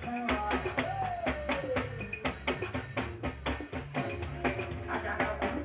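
Music with a steady drum-kit beat over a bass line; a sliding tone falls in pitch about a second in.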